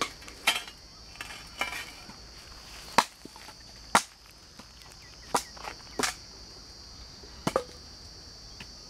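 Steady high-pitched drone of insects, such as crickets or cicadas, with about seven sharp knocks or snaps at irregular intervals.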